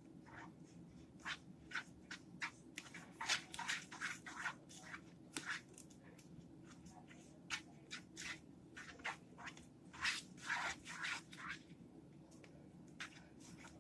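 Fluffy slime being stirred in a bowl: irregular soft scrapes and squishes of the utensil working through the shaving-cream mixture, in uneven clusters.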